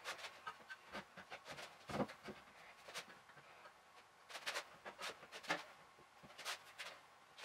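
Faint, scattered knocks and taps of wood on wood as a wooden bench frame and loose boards are shifted about on a workbench top.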